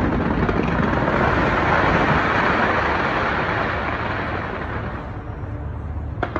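Dense aerial fireworks barrage heard from a distance, the many bursts blending into one continuous crackling rumble. It thins out over the last couple of seconds, and a single sharp bang comes near the end.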